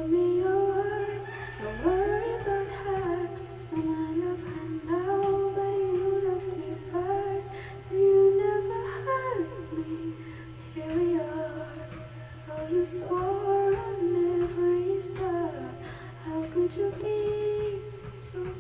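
A woman's solo voice singing a slow melody in long, held phrases that slide between notes.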